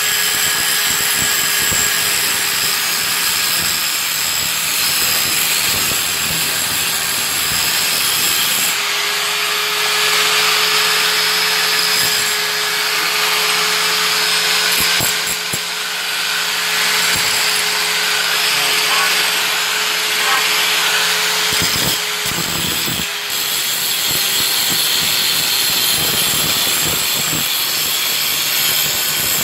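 Electric angle grinder running under load, its disc grinding rust off the top of an old steel railroad rail: a steady motor whine under a harsh, hissing grind. The level dips briefly twice in the second half as the disc eases off the metal.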